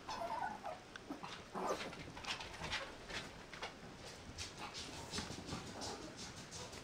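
A very young mixed-breed puppy whimpering softly, with a brief whimper near the start. Quick rustles and scratches run throughout as it shuffles on a fabric cushion.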